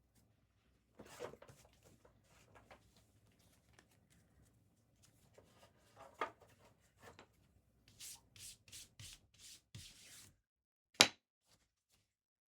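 Trading cards being handled: soft rustling and sliding, a quick run of about six short swishes near the end, then one sharp tap.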